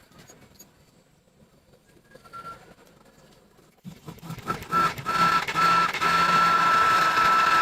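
A small motorised machine starts about four seconds in and runs on loudly with a steady high whine over a low hum.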